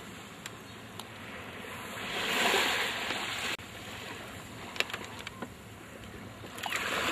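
Small waves lapping and washing onto a sandy shore of a calm bay, with a louder surge of wash that cuts off abruptly about three and a half seconds in.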